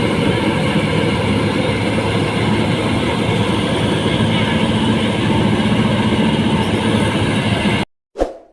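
New Holland 1545 combine harvester running, a loud steady machine noise that cuts off abruptly near the end, followed by one short ding.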